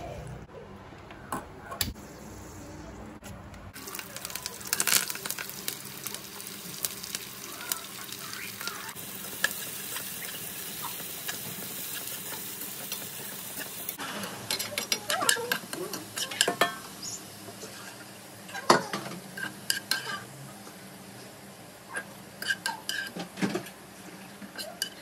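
Sliced onions sizzling as they fry in oil in a kadai, stirred and lifted with a slotted spatula that scrapes and knocks against the pan. It opens with a few seconds of chicken being mixed with spices by hand.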